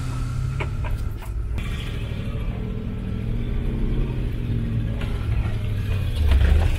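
Full-size Ford Bronco's engine running at low trail speed, heard inside the cab, a steady low rumble. A few sharp knocks and rattles come in the first second and a half as the truck jolts over the dirt track.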